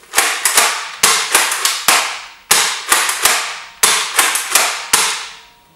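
BoomCo Halo Needler toy blaster being worked and dry-fired over and over: a rapid, uneven run of about sixteen sharp plastic clacks in five seconds, stopping about a second before the end. The blaster is not firing properly, which the owner suspects means he has broken it.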